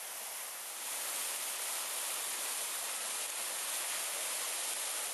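Fountain jets splashing and falling back into the basin: a steady rushing hiss that grows a little louder about a second in.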